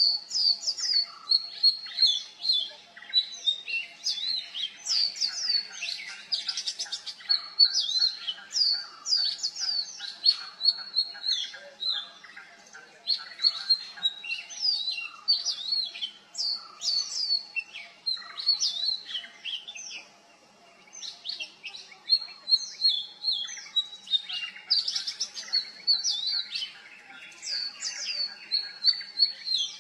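Oriental magpie-robin singing a long, varied song of rapid whistled and slurred notes, pausing briefly about twenty seconds in before singing on.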